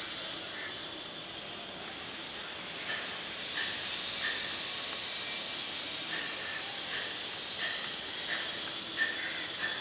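A small bird chirping repeatedly, one short sharp note about every three quarters of a second from about three seconds in, over a steady background hiss.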